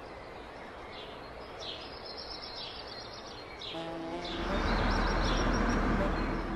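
Sound-effect ambience of birds chirping in short repeated tweets. About four seconds in, a louder, low rumbling rush of noise swells up and holds: a car approaching on the road.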